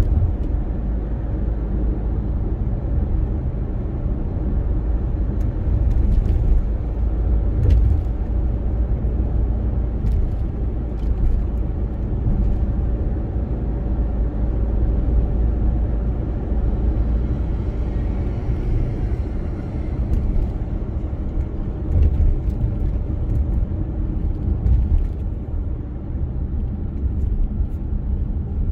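Car driving on city streets: a steady low rumble of engine and tyre noise, with a few faint ticks scattered through it.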